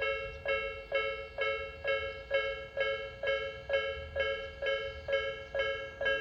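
Japanese railway level crossing's electronic warning bell ringing, a clear repeated ding about twice a second. It signals that a train is approaching and the crossing is closing.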